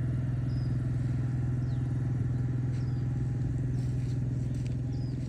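A steady low engine-like hum, unchanging in pitch and level, with a few faint short high chirps over it.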